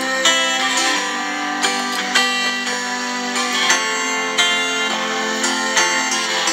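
Background music: a plucked-string tune with a steady beat.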